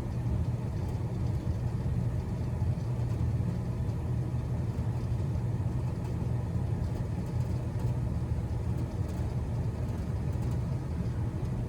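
Old Rheem gas furnace running with its burners lit: a steady low rumble.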